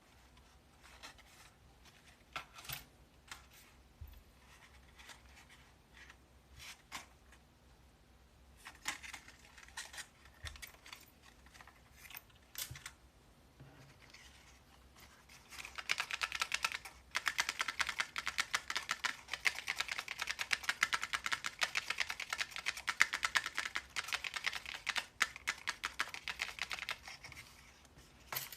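Handmade paper keycap clicker being pressed: scattered single clicks, then rapid, continuous clicking from about halfway through that stops shortly before the end.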